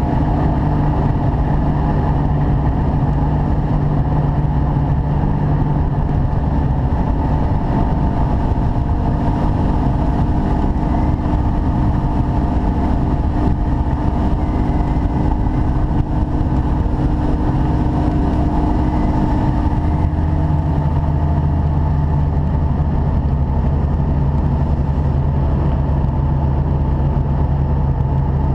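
OMC V6 two-stroke outboard motor running hard under way, with a steady engine note over wind and water noise. The engine note changes about two-thirds of the way through.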